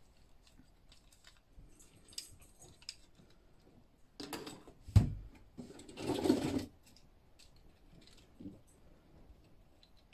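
Small clicks and rattles of plastic Transformers action figures being handled, with a sharp thump about five seconds in as a figure is set down on the tiled tabletop, then a short rustling scrape about a second later.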